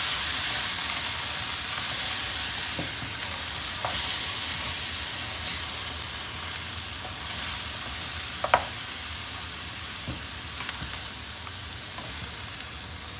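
Food sizzling in a frying pan while being stirred for pansit bihon, a steady hiss that slowly dies down a little. A few short clicks of the utensil against the pan, with the sharpest one about two-thirds of the way through.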